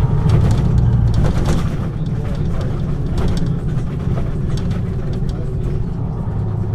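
Diesel engine of a MAN NG 313 articulated bus running steadily with a deep drone, a little quieter after about two seconds, with light clicks and rattles over it.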